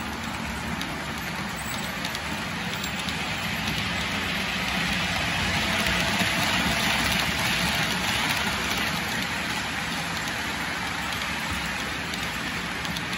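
OO gauge model freight train of container wagons rolling past on metal track: a steady rushing hiss of wheels on rail. It swells about five to eight seconds in as a second model train passes close by on the next track.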